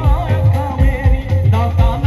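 Live Punjabi band music with a steady, heavy drum beat under a wavering melody line.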